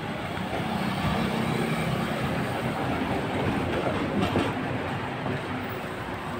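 Street traffic: a vehicle engine running and passing nearby over the hum of a busy road, loudest about four seconds in.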